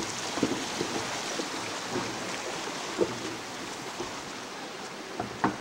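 Steady rushing of a shallow river flowing beneath a wooden suspension footbridge, with a few short knocks from footsteps on the bridge's plank deck, the loudest about three seconds in and a pair near the end.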